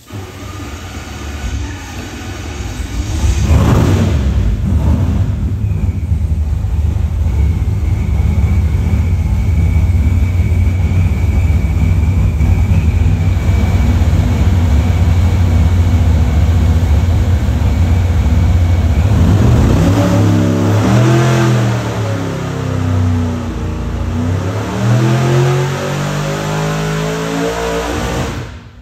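Supercharged 540 cubic inch big-block Chevy V8 with an F2 ProCharger, making a pull on the engine dyno on its pump-gas tune. It comes up to full load a few seconds in and runs hard and steady for about fifteen seconds with a faint whine above it, then backs off, its revs falling and rising.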